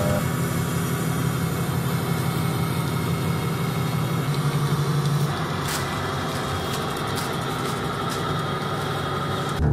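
A steady, dense low rumble with a fast flutter in the low end, engine-like, with a few faint clicks over it.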